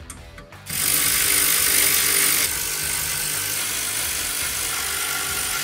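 Power ratchet running continuously as it drives down the seat-mount bolts. It is a steady, hissing whir that starts just under a second in and drops slightly in level about two and a half seconds in.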